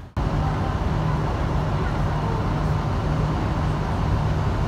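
Tour boat's engine droning steadily with a low hum, heard from on board along with water and wind noise.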